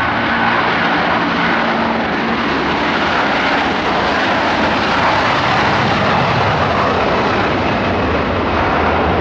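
Jet airliner engines running, a loud steady rushing sound with a faint whine at the start, mixed with wind on the microphone.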